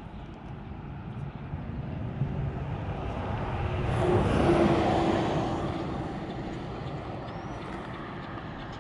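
A vehicle driving past. Its noise builds to a peak about halfway through and then fades, with a hum that drops slightly in pitch as it goes by.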